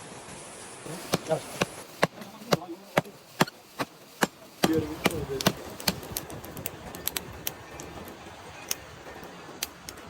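A series of sharp, irregular knocks and taps. They are louder and spaced out at first, then lighter and quicker in the second half.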